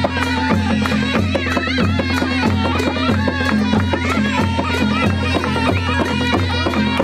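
Nepali panche baja music: a wavering reed-pipe (sahanai) melody over a steady beat of drums and cymbals.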